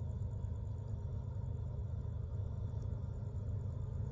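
Low, steady rumble of a freight train approaching in the distance, with crickets chirping faintly.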